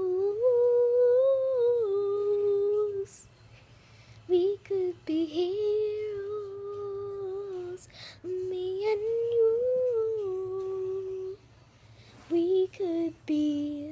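A young girl humming a tune: long held notes in several phrases, with short pauses between them.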